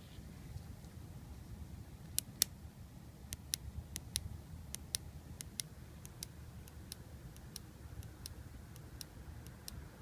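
Mitsubishi Lancer Evolution 560cc fuel injector clicking as a 9-volt battery clip pulses it on the bench. Sharp, irregularly spaced ticks start about two seconds in and carry on, the sign of a working injector whose internals are opening and closing.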